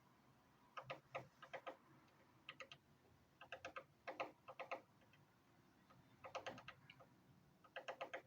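Woodpecker pecking at a wooden deck: short bursts of rapid taps, five or six bursts separated by brief pauses.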